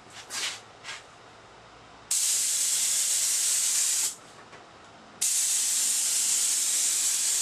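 HVLP spray gun spraying urethane finish: two brief puffs, then two steady passes of hissing spray about two seconds each, with a short break between them.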